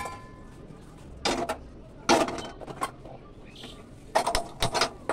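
Stainless-steel pots and pans clanking as one is taken down from a wire kitchen rack. A metal ring comes first, then several separate knocks and clatters of cookware.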